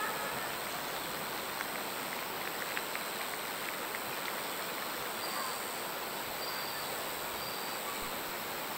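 Outdoor night ambience: a steady hiss with faint, short, high insect chirps every second or so from about halfway through, and a few faint ticks in the first few seconds.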